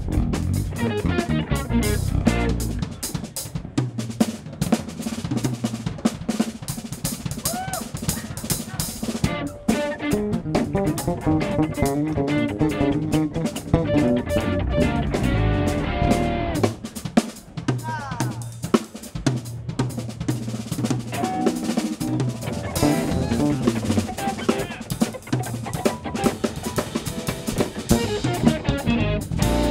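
Live instrumental funk band playing, with the drum kit (snare, kick, cymbals) to the fore over electric bass and keys.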